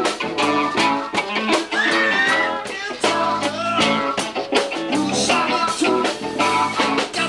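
A live band playing: electric guitar over a steady beat, with a man singing into a microphone.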